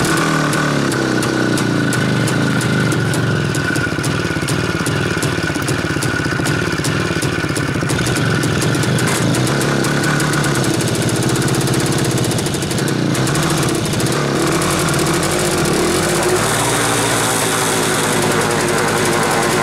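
Soviet IZh motorcycle's two-stroke engine idling steadily with the enricher switched off, running on cold without stalling.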